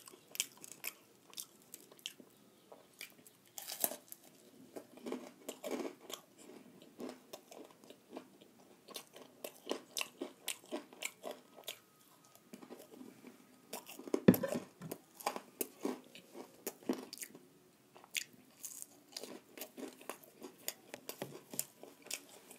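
A person biting and chewing crunchy fried food, with many small irregular crunches and mouth clicks and a louder bite about two-thirds of the way through.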